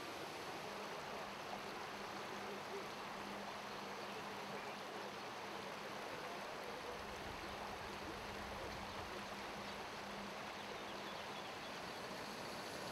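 Steady rush of a shallow mountain torrent running over rocks and stones.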